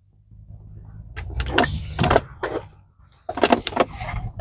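Irregular clicks and rattles of the ignition switch housing's plastic tabs and parts being pressed and worked by hand in the steering column, in two clusters, over a low rumble.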